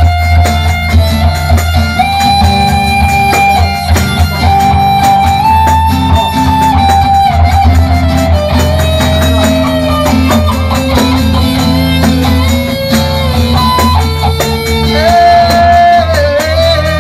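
Band playing an instrumental passage: a lead melody of long held notes that slide from one pitch to the next, over steady bass notes and chords.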